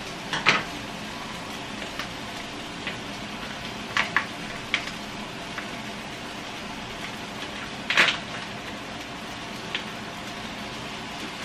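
Steady, low sizzle of minced meat and diced vegetables frying in a wok on a gas hob. Over it come a few sharp crackles and clicks of a plastic tray of crab meat being opened and handled, the loudest about eight seconds in.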